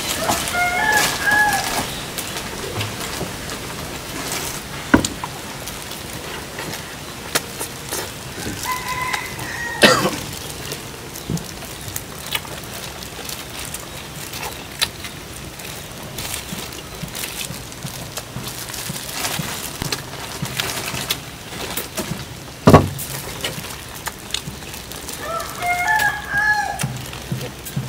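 A rooster crowing three times, each crow about a second long, with a few sharp knocks in between.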